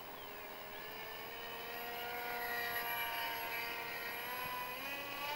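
RC model plane's motor and propeller whining steadily during a low pass. It grows louder over the first half as the plane comes closer, and its pitch slowly shifts.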